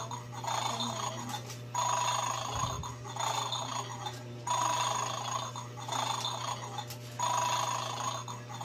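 Electronic 'Bad Dog' toy game playing a short ringing, tinny tune from its small speaker, the loop repeating about every two and a half seconds with brief gaps, over a steady low hum.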